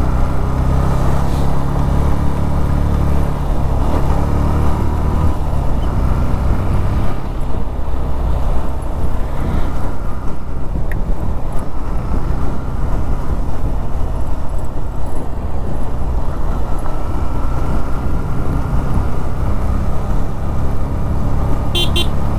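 Motorcycle engine running at riding speed, with wind noise over the microphone. The low engine hum is steadiest in the first several seconds and again near the end, and rougher noise takes over in between. A brief horn toot comes near the end.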